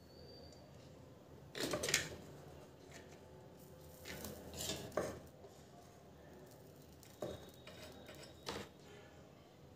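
Faint metallic scrapes and clicks of a soldering iron tip working against a subwoofer's terminal posts while the lead wires are soldered on. They come in a few short clusters, loudest about two seconds in and again near five seconds.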